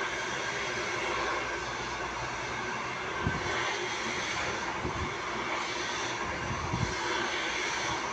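Handheld hair dryer blowing steadily as it styles a bob over a round brush, with a few soft low bumps from handling.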